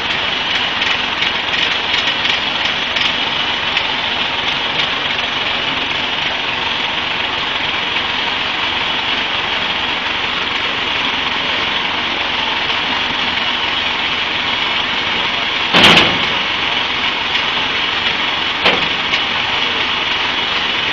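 A vehicle engine running steadily at idle, with a sudden loud bang about sixteen seconds in and a smaller knock a few seconds later.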